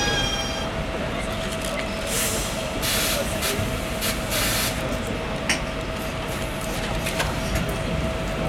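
Bombardier TVR rubber-tyred guided tram coming to a stop: its electric motor whine falls away within the first second. It then stands humming steadily, with several short hisses of released compressed air about two to five seconds in.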